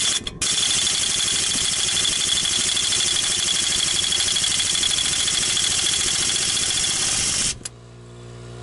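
Impact wrench on a spindle lock-nut socket, working the tight lock nut off a Dana 44 front axle spindle. Two short blips are followed by about seven seconds of continuous hammering that stops abruptly. A quieter steady hum is left near the end.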